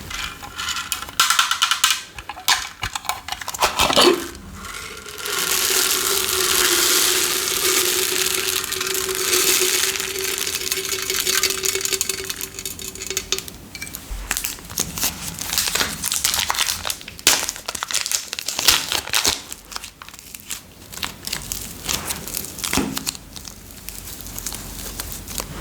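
Crinkling and crackling handling noises while slime is being made, with a steady hiss and a low steady tone lasting about eight seconds in the middle.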